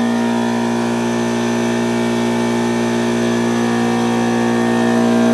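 A machine motor running with a loud, steady, unchanging hum that cuts off suddenly at the end.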